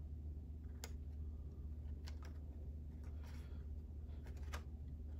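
Faint handling of a cardstock paper box: a few sharp light clicks and a soft rustle as fingers press a glued panel into place, over a steady low hum.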